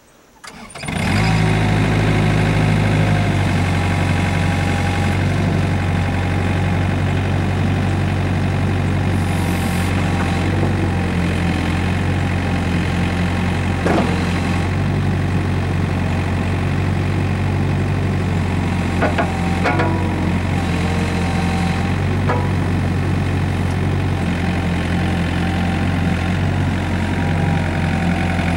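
Komatsu PC40MR-8 mini excavator's diesel engine running steadily while the boom and arm are worked hydraulically, with a few short clanks from about halfway through.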